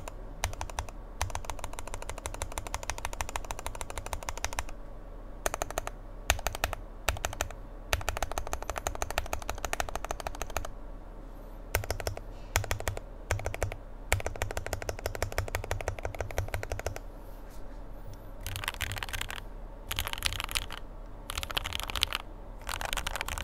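Think6.5 v2 gasket-mount mechanical keyboard with lubed and filmed Marshmallow switches on an FR4 plate and CMK Modo 2 keycaps being typed on. Fast runs of keystrokes are broken by short pauses.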